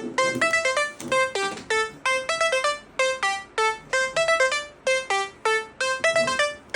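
Background music: a bright electric-piano or synth melody of quick, evenly paced notes.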